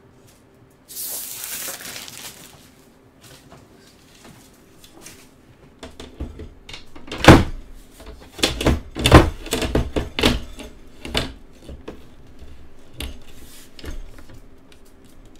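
A protective film being peeled off with a brief ripping hiss about a second in, then a series of knocks and thuds as a tempered-glass side panel is handled and fitted onto a steel PC case. The loudest knock comes about seven seconds in.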